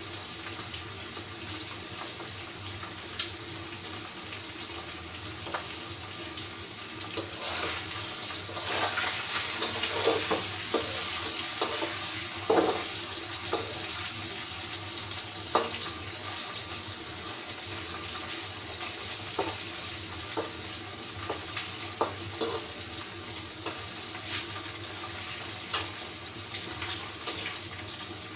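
Tap water running steadily into a sink, with scattered knocks and clatter of things handled in it, busier and louder for a few seconds about a third of the way in.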